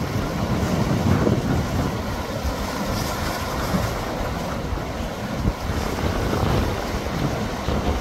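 Seawater surging and swirling against a concrete tetrapod wave-breaker block. Strong wind buffets the microphone with a low rumble.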